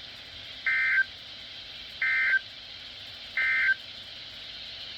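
Three short, identical Emergency Alert System (SAME) digital data bursts, harsh warbling two-tone buzzes about a second and a half apart, over faint radio hiss. Each burst lasts only about a third of a second, the length of the end-of-message signal.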